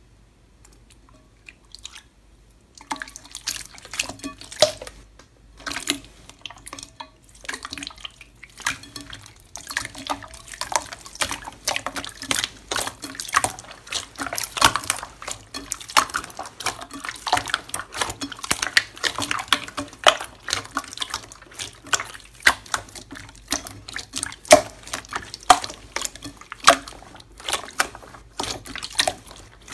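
Hands squeezing and kneading wet slime in a glass bowl: a dense run of wet squelches, pops and clicks. It is near quiet at first, and the sound starts about three seconds in.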